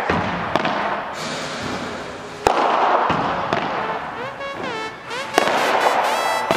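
Background electronic music: sharp hits every few seconds, each followed by a fading noisy wash, with a zigzagging synth figure coming in about four seconds in.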